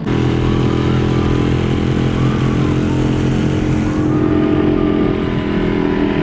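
Small outboard motor on an inflatable dinghy running steadily at speed while the boat is underway, with water and wind noise around it.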